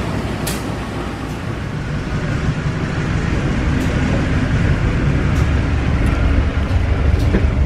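Diesel locomotive engine running with a low rumble that grows louder from about three seconds in, with a few faint clicks.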